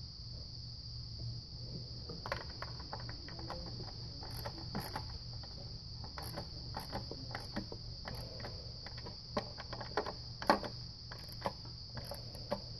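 Scattered light clicks and taps of a hand setting and threading the bolts of a plastic thermostat housing on a Dodge Avenger's 2.4L engine, a few sharper ones near the end, over a steady high-pitched trill.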